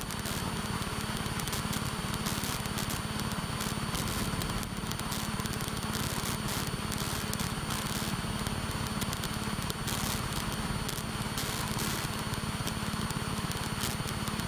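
Steady drone of a light aircraft's engine and propeller in cruise flight, heard from inside the cockpit.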